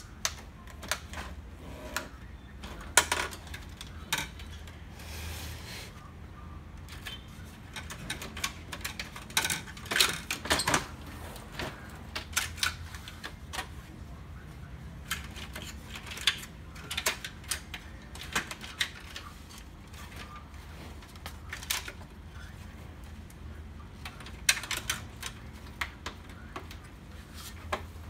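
Plastic housing and scanner-assembly parts of an HP LaserJet M135a laser printer clicking, knocking and clattering as they are handled and pried apart by hand. The clicks come irregularly, a few at a time, with louder clusters about 3 s, 10 s and 25 s in.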